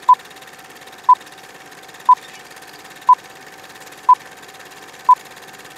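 Film-leader countdown sound effect: a short beep once every second, six in all, over a steady faint hum and hiss.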